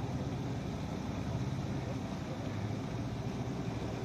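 An engine running steadily with a low hum, its pitch dipping slightly for a moment around the middle.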